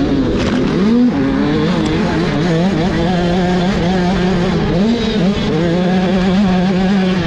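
Motocross dirt bike engine heard from a camera mounted on the bike, its pitch climbing and dropping again and again as the rider works the throttle and shifts under racing load.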